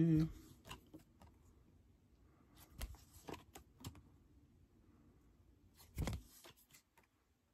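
Soft rustles and clicks of trading cards being handled and swapped in the hand, with a dull thump about six seconds in.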